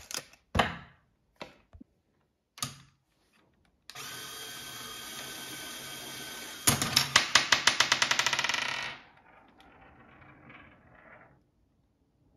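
Small Lego Technic electric motor driving a plastic gear train, starting with a steady whine about four seconds in. From a little under seven seconds the whine turns into rapid clicking, about eight or nine clicks a second, as the throwing arm swings up. It cuts off suddenly at about nine seconds and is followed by a fainter rattle. Before the motor starts there are a few sharp clicks and one loud snap, as a tape measure is handled.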